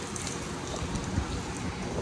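Water spattering on a freshly wet-sanded car hood as the sanded paint and clear coat residue is rinsed off: a steady hiss with faint small patters.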